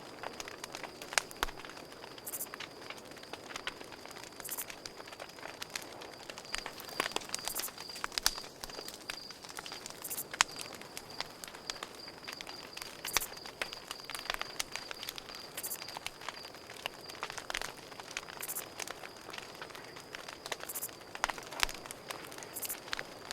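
Campfire crackling, with frequent sharp pops and snaps from the burning wood, over a steady high trill of crickets.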